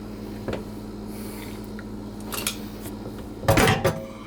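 Metal tools and parts being handled: a few light clicks, then a brief metallic clatter with a short ring about three and a half seconds in.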